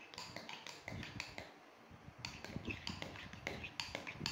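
Metal spoon tapping and scraping against a ceramic bowl while stirring and pressing cream cheese and condensed milk smooth: irregular light clicks, several a second.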